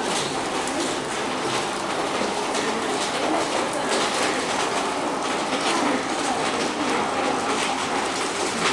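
Steady rain falling and dripping around a covered veranda, with a faint murmur of voices underneath.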